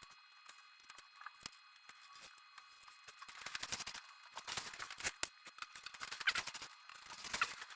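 Foam board being worked by hand: scattered light clicks, then dense scratchy crackling from about three seconds in, with short squeaks near the end.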